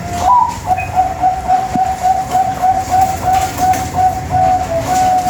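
Bangkok-type zebra dove (perkutut) singing its cooing song: a brief higher opening note, then a fast run of short coos at about three or four a second on one pitch, ending in a longer held note.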